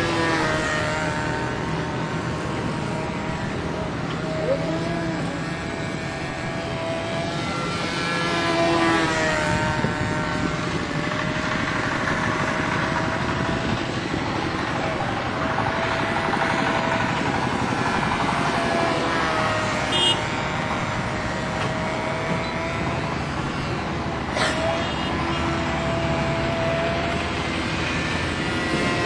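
Radio-controlled Yak-54 model airplane's engine and propeller buzzing steadily as it takes off and flies, its pitch wavering up and down.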